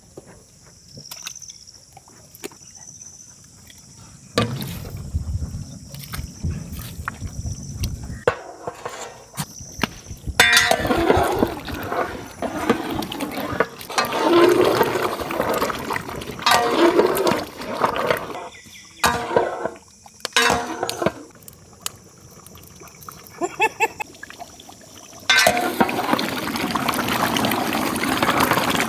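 Liquid pouring and splashing in a large cooking pot, in several stretches, the longest and steadiest near the end, with some talk in between.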